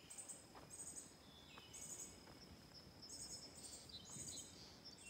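Faint outdoor garden ambience: short bursts of rapid, very high chirping from small birds and insects every second or so, over a steady thin high tone and soft background noise.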